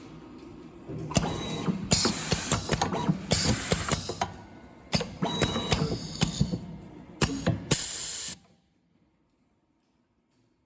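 Semi-automatic USB cable soldering machine working through its motions: a run of clicks and clacks with short, loud bursts of hiss. It stops abruptly about eight seconds in.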